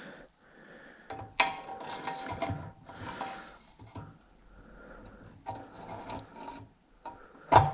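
Steering stem of a Yamaha RD50 being pushed and twisted up into the frame's head tube: irregular metal-on-metal scraping and clicking as it is test-fitted in the freshly filed head tube. A sharp knock near the end.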